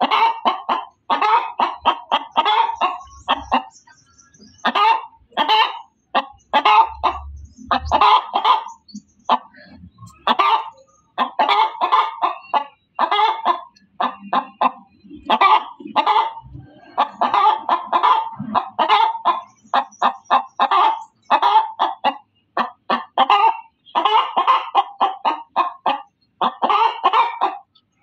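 Domestic hen cackling: runs of rapid, loud clucks, repeating in bursts with short gaps between them.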